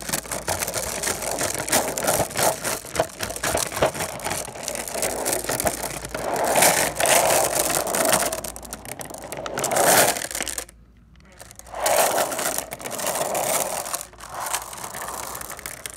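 Glass marbles rolling and clattering against each other, a dense run of small clicks that gives way to several louder swells of rattling, rushing noise.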